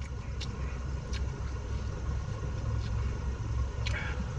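Car engine idling, a steady low hum, with a few light clicks over it.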